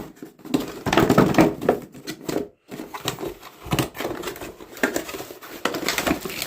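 Packaging being opened and handled: irregular rustling with many light clicks and knocks.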